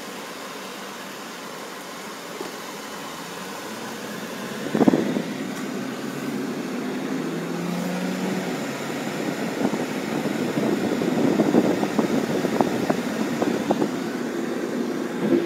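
Car driving along a road, heard from inside the cabin: a steady road and engine noise that grows louder about four seconds in. There is a thump near five seconds, and scattered clicks and knocks come later on.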